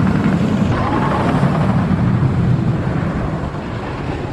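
Wooden roller coaster train running along RMC Topper Track: a loud low rumble that fades near the end.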